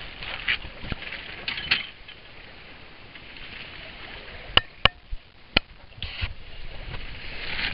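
Steady hiss of water and air moving past a small sailboat under sail, broken by three sharp clicks or knocks about halfway through.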